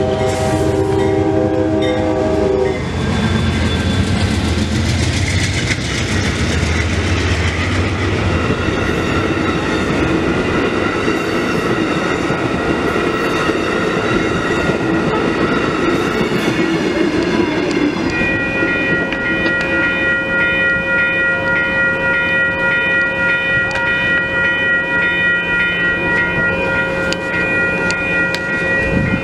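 Amtrak Downeaster passenger train's horn sounding a chord and cutting off about three seconds in. Then comes the rush and clickety-clack of the train passing over the rails. In the last ten seconds a steady ringing tone with a regular pulse sets in over it.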